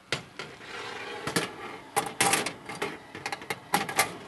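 Metal baking tray sliding onto a wire oven rack, scraping and clattering in a string of sharp clicks and knocks.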